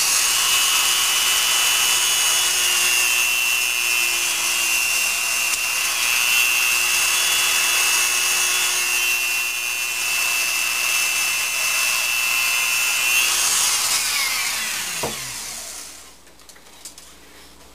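Dremel rotary tool with a cut-off wheel running at speed and cutting through a 4 mm carbon tube, a high whine over gritty grinding hiss. About 13 seconds in it is switched off and the whine falls as the wheel spins down, followed by a few light clicks near the end.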